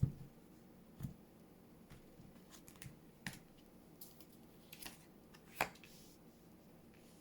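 Tarot cards being handled and drawn from the deck: a few soft, separate card clicks and taps spread over several seconds, with quiet room tone between them.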